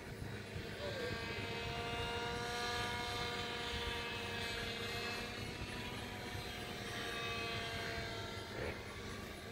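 Electric motor and propeller of a ReadyMadeRC Anaconda RC airplane in flight overhead: a steady whining drone with many overtones that swells in the middle and eases off toward the end.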